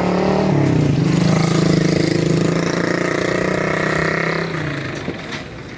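A motor vehicle engine running close by. Its pitch drops about half a second in, and it fades away near the end.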